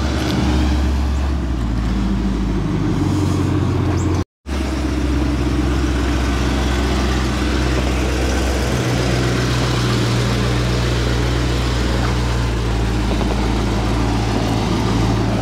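Holden HT Monaro's V8 engine rumbling loudly at idle and low speed as the car creeps across the yard and into the shed. The sound cuts out for a moment about four seconds in.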